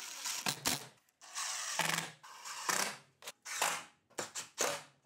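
Cordless drill driving short wood screws through thin plywood into a plywood fence, in about six short spurts of a few tenths of a second to a second each, with brief pauses between them.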